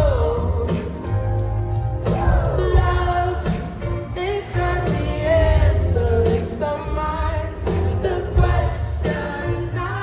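Live pop band playing with a female lead singer, her wavering sung melody over drums and heavy bass, heard from within the audience.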